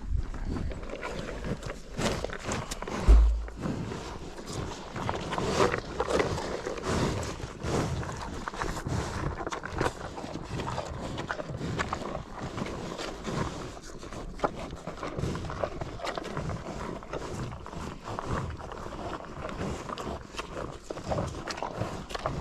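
Cattle eating feed at close range, with irregular crunching and shuffling of hooves, and one low thump about three seconds in.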